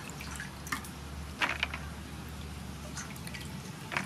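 Hands rinsing herbs in a stainless steel bowl of water: a few short splashes and drips spread unevenly, with a steady low hum underneath.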